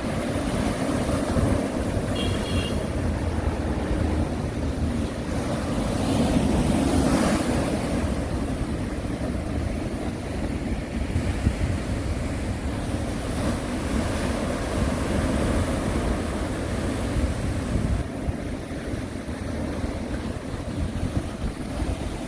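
Sea waves on the East Sea coast, a steady wash of surf that swells as a wave breaks about seven seconds in. A brief faint high tone sounds about two seconds in.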